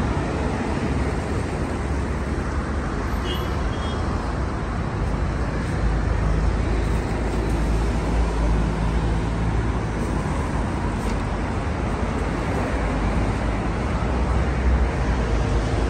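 Steady road traffic from passing cars and buses, a continuous deep rumble that grows louder about six seconds in.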